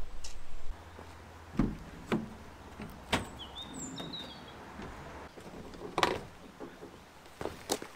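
A handful of sharp knocks and clicks, several seconds apart, over quiet open-air background, with a few short bird chirps in the middle. A low rumble cuts out just before the first knock.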